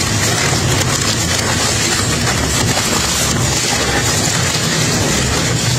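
Industrial shaft shredder running, its toothed rotors grinding and tearing through a three-wheeled cargo tricycle's metal frame and tyres: a steady, dense crunching noise over a low machine drone.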